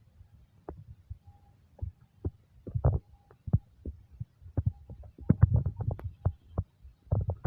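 Hooves of a flock of sheep walking past in a line: many irregular low thumps and clicks, busiest in the second half.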